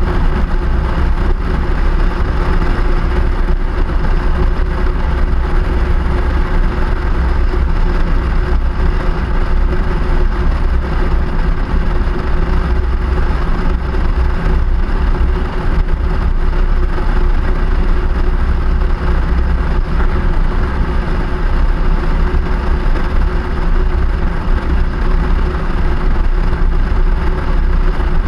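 Steady wind rush and road noise of a moving vehicle on an action camera's microphone, with a constant low hum and no breaks.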